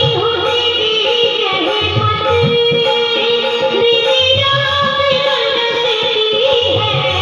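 Bhajan music: a held, ornamented melody line over hand-drum strokes, with little or no singing.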